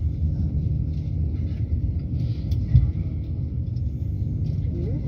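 Low, steady rumble of a passenger train rolling slowly, heard from inside the carriage, with one louder thump a little past the middle.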